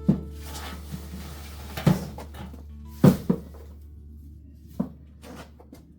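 Background music with a low steady hum, broken by about five sharp knocks of objects being handled. Two of the knocks come in quick succession about three seconds in.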